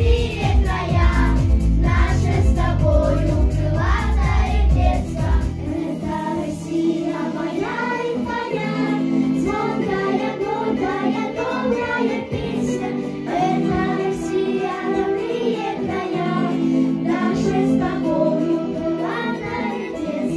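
Children's vocal ensemble singing a song together over instrumental accompaniment. The heavy bass drops out about six seconds in, leaving lighter accompaniment under the voices.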